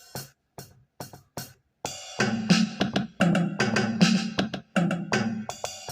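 Jazz drum kit sound of an Akai MPK Mini Play keyboard, tapped out on its drum pads. A few single hits come first, then a quicker, busier beat from about two seconds in.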